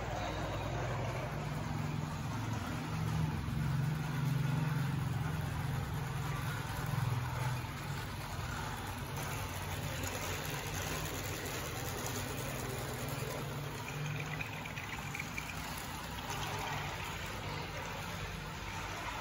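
Small electric motor of a motorised cardboard model train humming steadily as the train runs along its cardboard track; louder over the first several seconds, then a little quieter.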